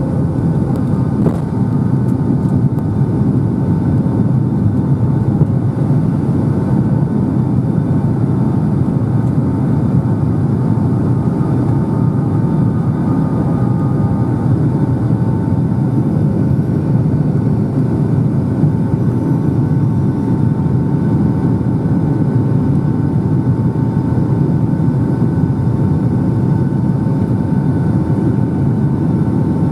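Boeing 757-200 engines at climb power, heard inside the cabin over the wing just after takeoff: a steady low rumble of engine and airflow noise with a faint, constant whine on top.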